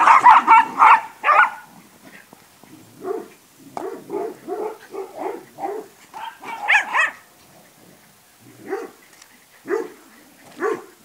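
Several dogs barking: a fast run of loud, sharp barks at the start, then quieter separate barks in a string mid-way and a few single barks near the end.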